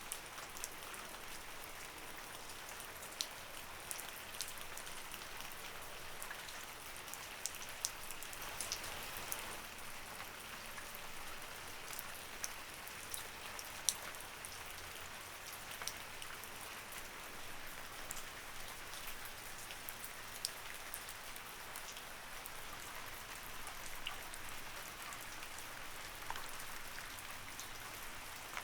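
Light rain falling steadily: a soft even hiss with scattered individual drops ticking sharply on a surface.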